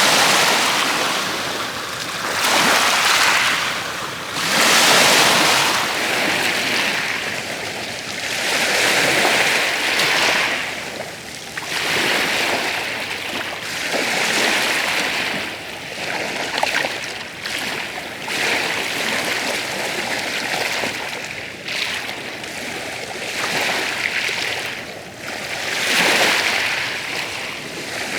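Ocean waves breaking and washing up a beach, a hissing surf that swells and fades every two to three seconds.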